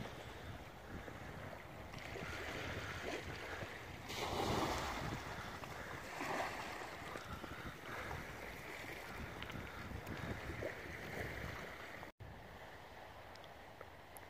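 Wind buffeting the microphone over the wash of small waves on a stony shore, in uneven gusts. It breaks off for an instant about twelve seconds in and goes on quieter.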